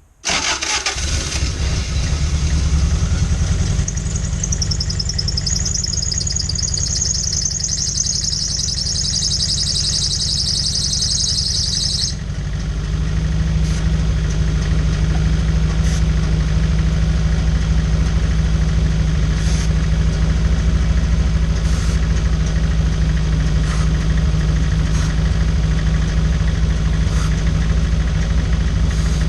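Toyota 4A-GE 1.6 L 16-valve four-cylinder engine running at idle while carb cleaner is sprayed around the intake to hunt for vacuum leaks. The spray's hiss runs from about 4 to 12 seconds and cuts off sharply. After that the engine note is steadier and slightly louder.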